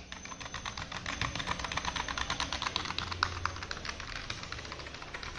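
Fast, continuous typing on a USB computer keyboard: a steady run of key clicks, many a second.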